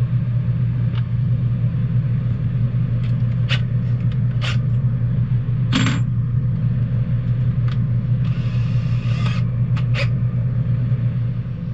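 A steady low hum, with scattered small clicks and clinks from handling tools and parts and a short rustle near the end.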